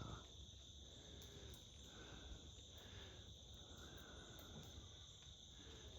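Faint, steady chorus of insects such as crickets, a constant high-pitched trill that never breaks.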